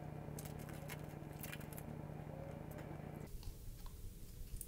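Faint crinkling and small clicks from thin plastic film being peeled off the wound roll of a 220 V AC capacitor in its aluminium can. A low steady hum runs underneath and cuts off a little over three seconds in.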